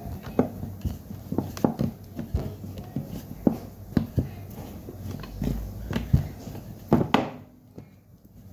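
Irregular sharp clicks and taps of objects being handled, over a steady low hum; they thin out near the end.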